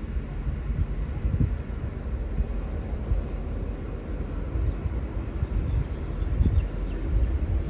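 V/Line N-class diesel-electric locomotive and its train moving through the station, giving a steady low rumble with no horn.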